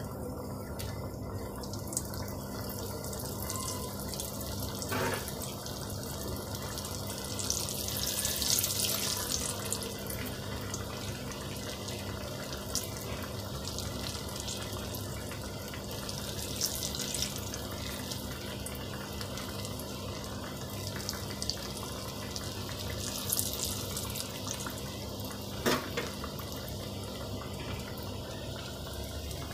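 Hot oil sizzling and crackling steadily as stuffed luchi parcels deep-fry in a karahi, with the hiss swelling louder a few times. A steady low hum runs underneath.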